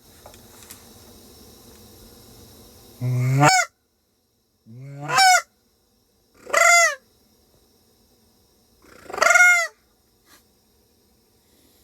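Canada goose honks: four separate loud calls, each breaking sharply upward from a low note to a high one.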